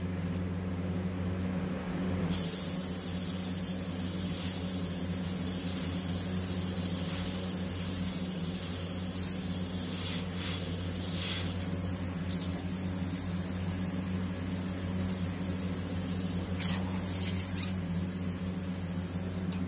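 Airbrush spraying white paint: a steady hiss of air and paint that starts about two seconds in, over a steady low hum.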